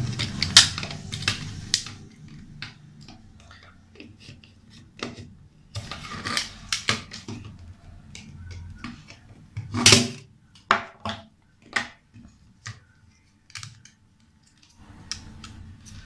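Sharp plastic clicks and snaps as the cover of a Whirlpool washing machine door lock is pried off with needle-nose pliers. The clicks come irregularly, with a louder cluster of snaps about ten seconds in.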